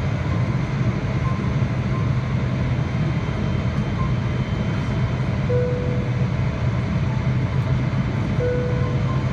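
Steady cabin roar inside a Boeing 777-300ER on its approach descent, heard at a window seat over the wing: the GE90 engines and the airflow over the fuselage make a constant rushing noise with a low hum underneath. Two brief steady tones sound about three seconds apart in the second half.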